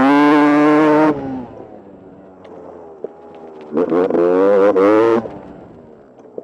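Sherco enduro motorcycle engine heard from the rider's helmet camera: held open hard for about a second, then off the throttle and burbling, then opened up again for a second and a half about four seconds in before backing off once more.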